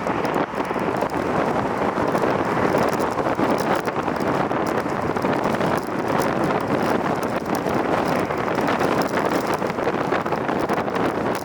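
Strong wind buffeting the camera microphone: a loud, rough rush with rapid uneven thumps.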